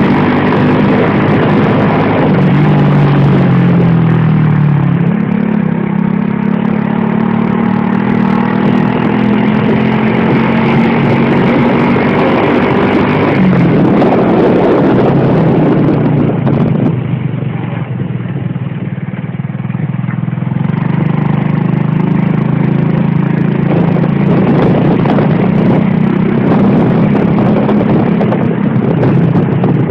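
Motorcycle engine running under way, its pitch rising and falling with throttle and gear changes over a steady rush of road and wind noise. The engine eases off for a few seconds just past the middle, then pulls again.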